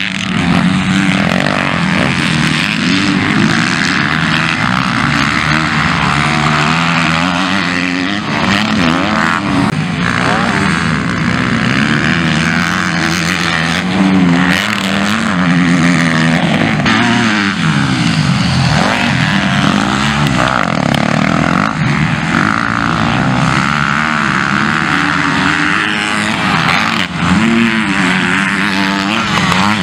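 MX2-class motocross bike engines racing round the track, revving up and down over and over as riders accelerate, shift and back off for jumps and corners.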